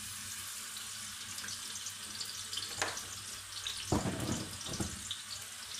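Cooking oil sizzling with a steady hiss as it heats in a hot steel wok, with a few dull knocks about four seconds in.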